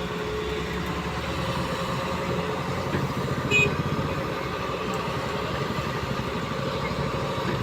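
A JCB excavator's diesel engine running steadily with a pulsing low rumble. About three and a half seconds in, a brief high-pitched squeak cuts through once.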